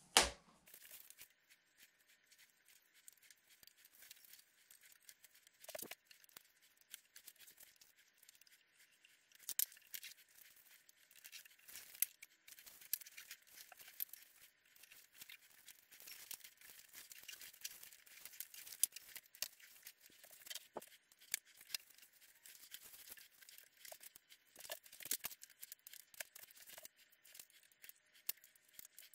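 Handlebar tape being wrapped around a road bike's drop bar by hand: irregular small crackles, ticks and rustles as the tape is handled and stretched round the bar, with a sharp click at the very start.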